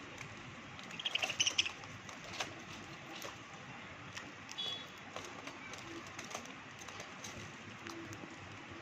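Budgerigars chirping: a quick run of high chirps about a second in and a shorter chirp about halfway, with scattered faint clicks over a steady background hiss.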